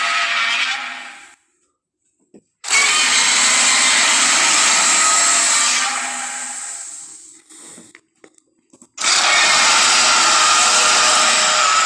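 Made-up monster roar sound effects, blended from film dinosaur and monster roars and animal calls: a harsh, loud roar fades out about a second in, a long roar of about four seconds follows, and another begins about two seconds after it ends.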